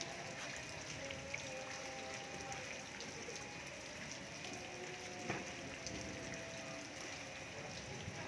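Steady rain falling, with faint, indistinct sounds like distant voices underneath and a single sharp knock about five seconds in.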